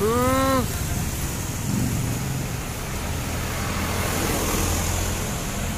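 Road traffic: a steady hum of engines that swells as a vehicle goes by about four seconds in.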